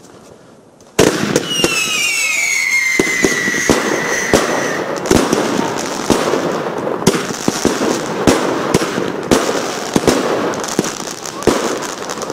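Helios Toronto 16-shot firework battery firing. About a second in it goes off suddenly, with falling whistles for the first few seconds. A quick series of shots follows, with crackling and hissing between them.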